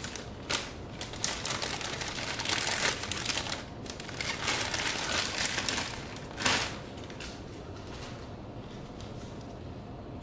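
Clear plastic sleeve crinkling and crackling as it is pulled off a potted orchid, with a sharp loud crackle about six and a half seconds in; the crinkling dies down after about seven seconds.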